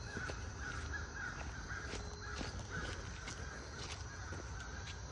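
A steady run of short animal calls, about three a second, with a few faint footsteps through woodland undergrowth beneath it.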